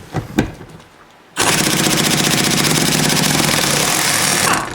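A few light knocks, then about a second and a half in, an impact wrench runs in a loud continuous hammering rattle for about three seconds. It is driving a socket on a long extension to loosen a seat bolt.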